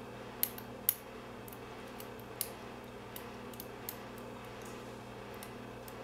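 Small, sharp metallic clicks of a lock pick working the pins inside a brass LSDA padlock during single-pin picking: three loud clicks in the first two and a half seconds, then a few fainter ticks, over a steady low hum.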